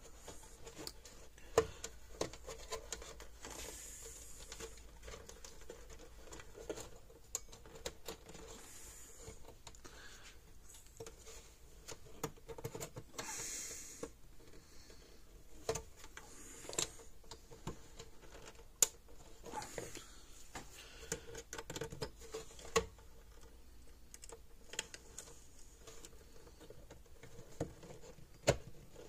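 Irregular small clicks, taps and scrapes of hands and needle-nose pliers handling wires and terminals inside an open plastic fence-charger case, with a faint steady hum underneath.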